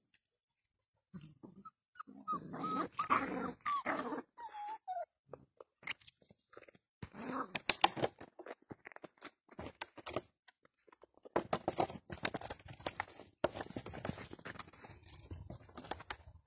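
A litter of puppies whimpering and yipping with short high whines for a few seconds, then scuffling and scratching about on a blanket as they play, with many small clicks and rustles.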